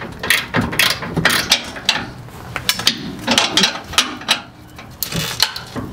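Ratchet wrench clicking in short, uneven strokes, with metal tool clinks, as bolts on the front strut assembly are tightened.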